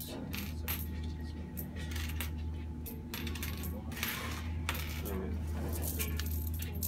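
Coins clinking and clicking as they are counted out and set down on a shop counter, a run of short, irregular clinks, over a low steady hum.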